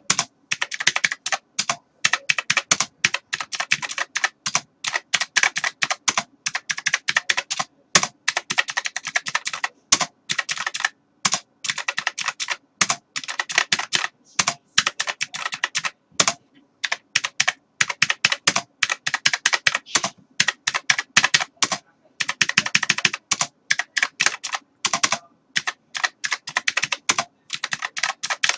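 Typing on a computer keyboard: fast, irregular runs of key clicks in bursts, with short pauses between them.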